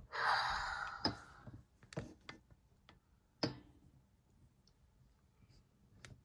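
Scattered light clicks and taps of small die-cast toy cars being handled and set down, the sharpest about three and a half seconds in, after a short breathy rush in the first second.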